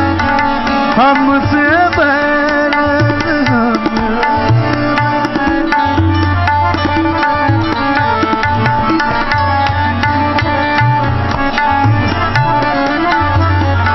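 Hindustani classical music: tabla playing a fast, dense rhythm with repeated deep bayan bass strokes, over held harmonium notes and a tanpura drone. A few sliding sung notes come in the first few seconds.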